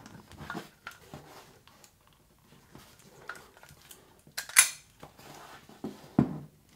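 Small clicks and knocks of a Nikon F3 camera and its waist-level finder being handled, with one sharp click about two-thirds of the way through and a couple of soft knocks near the end.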